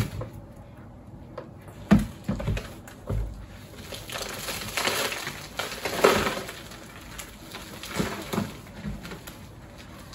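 Rustling and crunching of plants and soil being pulled out of garden pots, with a few sharp knocks about two and three seconds in.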